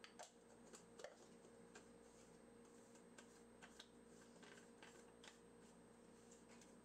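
Near silence with faint, scattered clicks and taps as a personal blender's plastic cup and blade base are handled.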